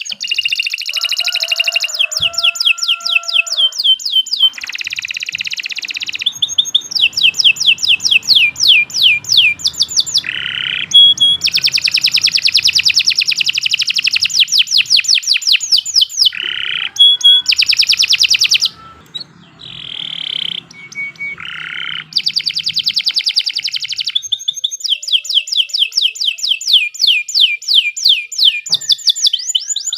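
Domestic canary singing a long, loud song of fast trills and rolls: runs of rapidly repeated high sweeping notes alternating with buzzy rolled phrases, with only a brief break about two-thirds of the way through.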